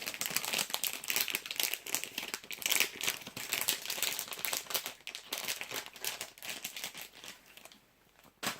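Plastic snack packet crinkling as it is handled, a dense, irregular rustle that dies away about seven and a half seconds in. A single sharp click comes just before the end.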